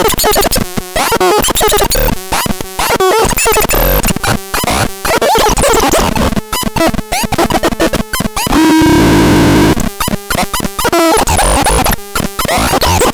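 ABSURDON X1 electronic noise box making glitchy, rapidly stuttering electronic sounds with gliding pitches. About nine seconds in there is a burst of steady hiss with a held low tone, which then breaks back into the chopped stutter.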